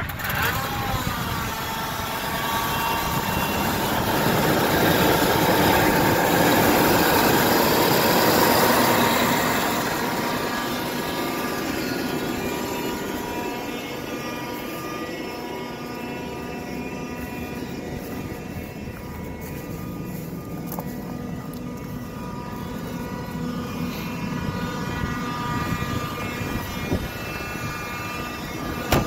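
Ford F-150 Triton V8 idling just after it has been started. It runs louder for the first several seconds and settles to a steadier idle about ten seconds in. A single sharp knock comes near the end.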